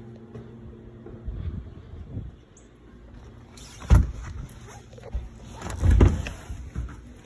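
Dull knocks and thumps from an interior door being handled and opened by its knob. The sharpest knock comes about four seconds in and the loudest thump around six seconds in, as the knob is gripped.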